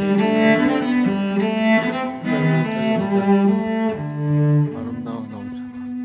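Background music: a slow melody on bowed strings, cello-like, in long held notes that step from pitch to pitch, growing somewhat softer near the end.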